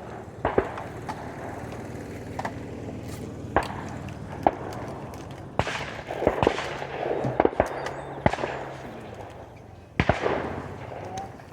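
Shotgun shots on a sporting clays course at irregular intervals: a few close and loud with a short echo, most fainter and distant from other stations.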